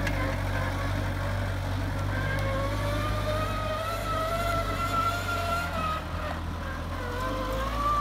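Bobcat B300 backhoe loader's diesel engine running as the machine drives, with a whine over the steady engine hum that climbs in pitch about two seconds in, drops away briefly around six seconds, and climbs again near the end.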